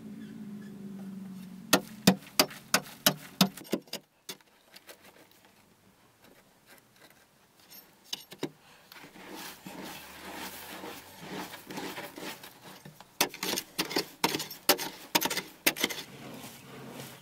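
A hand tool chipping at a hard earth wall: a run of about eight sharp strikes, roughly three a second, then a quieter stretch of scraping with a few single knocks, and another quick run of strikes near the end.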